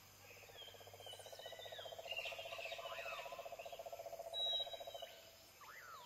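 A steady, rapidly pulsing low trill that stops about five seconds in, with birds chirping in short calls over it.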